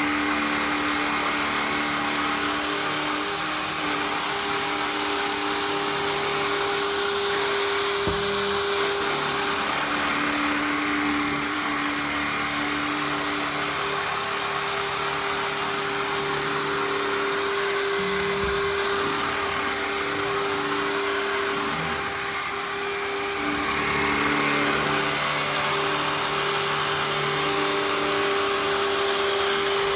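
Tsukamoto Aim VAGUA AIM-SC100 water-filter vacuum cleaner running steadily, a dense rush of air with a steady motor hum and a thin high whine. There are a couple of brief low knocks, about eight and eighteen seconds in.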